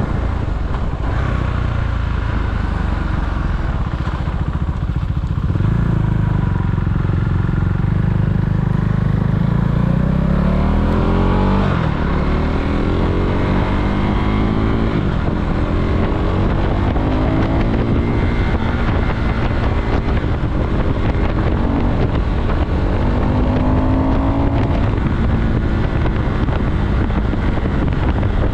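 KTM Duke motorcycle engine under way, running steadily at first, then accelerating through the gears about a third of the way in: the engine note rises, drops at each upshift and climbs again several times.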